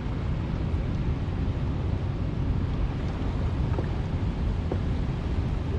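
Steady wind buffeting the microphone over the noise of moving water, strongest in the low end.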